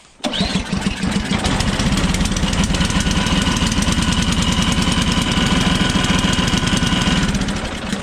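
Ariens Deluxe 24 snowblower's single-cylinder engine firing up right away, about a quarter of a second in, on a test start just after its carburetor was cleaned. It runs steadily with a fast, even firing beat, then falls away near the end as it is shut off.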